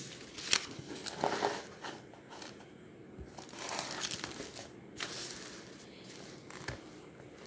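Textbook pages being turned by hand: paper rustling, with several sharp flicks and crinkles as the pages are leafed over.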